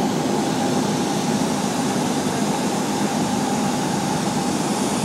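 Steady drone of a light plane's engine and propeller heard inside the cabin on final approach, a loud, even noise with a constant hum.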